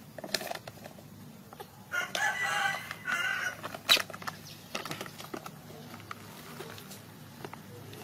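A high, wavering animal call in two parts, about two seconds in, among scattered small clicks of handling, with one sharp click just before the fourth second.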